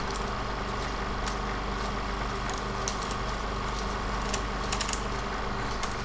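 Vintage film-projector sound effect: a steady hum and hiss with several held tones and scattered crackling clicks.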